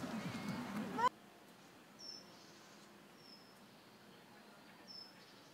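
Park ambience with distant voices for about a second, cut off abruptly; then quiet, with three short high bird chirps.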